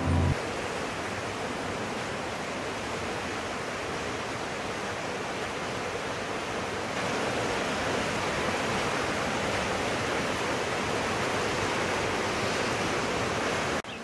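Rushing water of a river rapid, a steady even rush that grows a little louder about halfway through and cuts off suddenly near the end.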